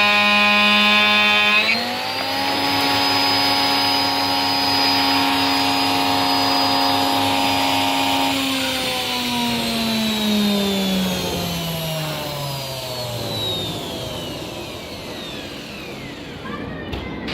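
Washing machine universal motor, driven by a TDA1085 speed-control circuit, running with a steady whine. About two seconds in it steps up to a higher speed and holds there. A little after eight seconds it winds down, its pitch falling over about six seconds as it coasts to a stop, and a short knock comes near the end.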